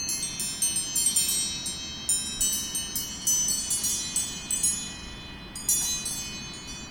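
iPhone ringtone playing: a quick run of high, chime-like ringing notes, the phrase starting over near the end.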